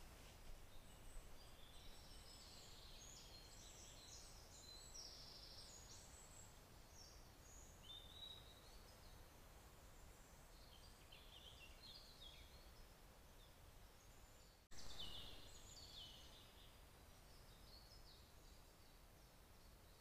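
Faint forest birdsong: several small songbirds singing short, high chirping phrases over a low background hiss. The sound breaks off for an instant about three-quarters of the way through, after which the singing is briefly louder.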